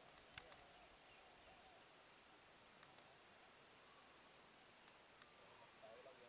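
Near silence: faint outdoor ambience with a few faint, high bird chirps and a steady thin high tone.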